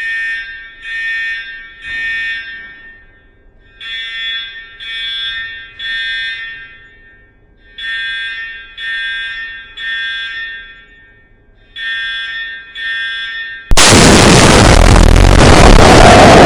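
Electronic alarm sounding buzzy beeps in groups of three, a new group about every four seconds: the temporal-three pattern used for fire evacuation alarms. Near the end a sudden, much louder blast of harsh noise cuts in and covers everything.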